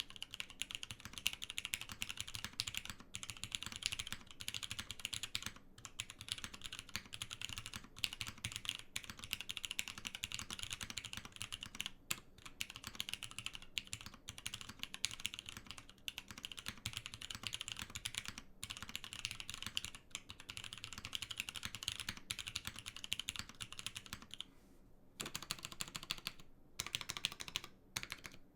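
Spyder TKL mechanical keyboard with Cherry MX Nixie switches on a polypropylene plate, typed on quickly and continuously, with short breaks every few seconds. The owner calls its sound long-pole-like.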